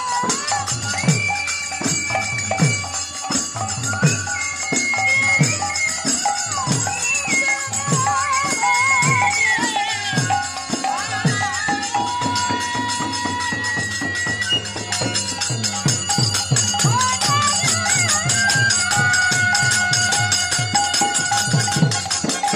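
Bengali nam kirtan music: a woman sings the lead over khol drums beating a quick, steady rhythm, with jingling metal percussion, harmonium and bamboo flute.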